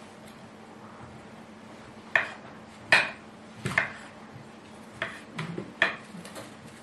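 Kitchen clatter as food is prepared by hand: a knife and dishes knocking and clicking on a wooden surface, about half a dozen sharp, irregular knocks starting about two seconds in.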